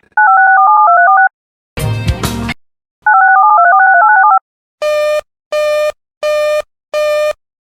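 Emergency alert signalling tones. Two runs of rapidly stepping paired beeps, like touch-tone signalling, are split by a short burst of static. Then a buzzing alert tone beeps four times, evenly spaced, about every 0.7 s.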